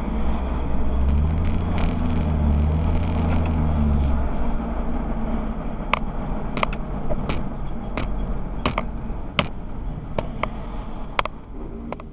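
Car engine and tyre noise heard from inside a moving car's cabin. The engine pulls strongly for the first few seconds, then eases as the car slows. Sharp ticks repeat about every two-thirds of a second through the second half.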